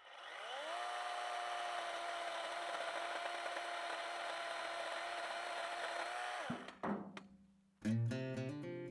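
Small electric chainsaw's motor spinning up over about a second, running at a steady high pitch for about six seconds, then cutting off suddenly, followed by a single knock. Acoustic guitar music begins near the end.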